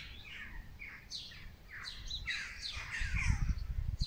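Songbirds singing: quick phrases of sweeping, falling chirping notes, with a low rumble of wind or handling noise on the microphone coming in near the end.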